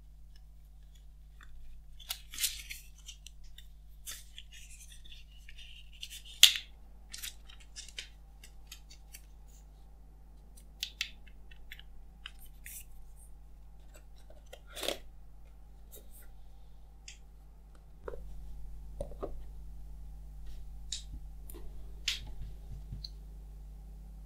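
Hands handling an iPhone box and its paper and cardboard packaging: short crisp rustles and crinkles of the paper insert, with scattered sharp clicks and taps of the box pieces and phone, the loudest click about six seconds in.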